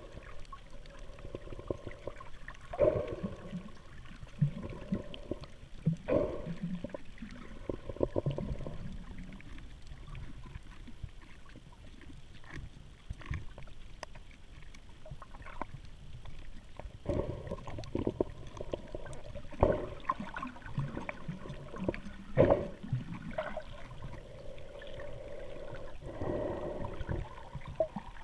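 Muffled underwater water noise, with irregular thumps and knocks scattered through it, heard through an underwater camera's housing.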